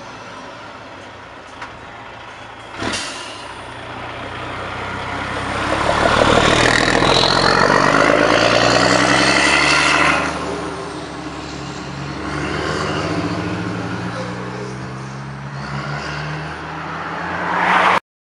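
DAF XF truck's diesel engine pulling away and accelerating past, its pitch rising and falling through the gears. A short sharp burst comes about three seconds in. The engine is loudest as the truck goes by, then fades as it drives off, and the sound cuts off abruptly near the end.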